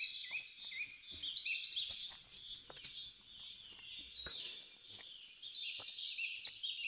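Many birds singing and chirping at once, their calls overlapping, thinning out in the middle and busy again near the end. A few faint light taps sound beneath them.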